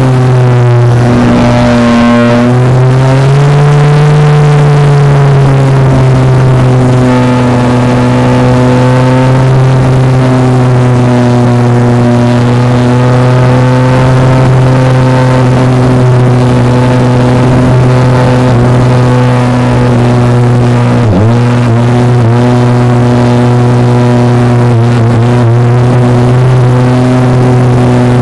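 An RC model plane's motor and propeller, heard from the plane itself in flight, running at a loud, steady pitch. The pitch wavers in the first few seconds and dips briefly a few times about two-thirds through.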